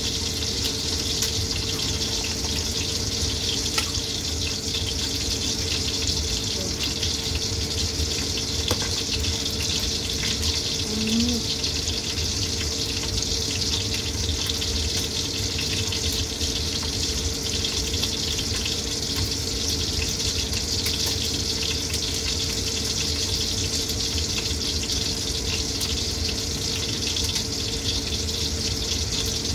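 Steady rushing hiss with a faint steady hum, unchanging throughout, and now and then a light clink of a fork on a steel bowl.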